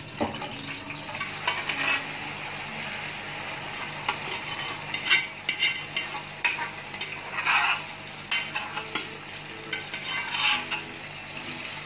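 Hot oil with cumin seeds sizzling in a metal karahi as pressure-cooked boneless beef is tipped in from the cooker pot, with sharp metal clinks and scrapes of pot and spoon against the pans every second or two.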